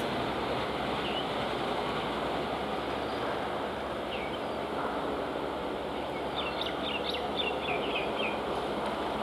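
Electric multiple-unit local train approaching slowly, heard as a steady rushing noise. Birds chirp once about four seconds in and in a quick run of chirps from about six to eight seconds in.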